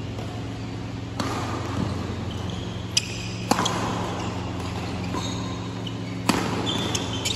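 Badminton rackets striking a shuttlecock in a fast rally, about five sharp hits spread unevenly, the loudest a little after three seconds and about six seconds in. A few short high squeaks come between the hits over a steady low hum.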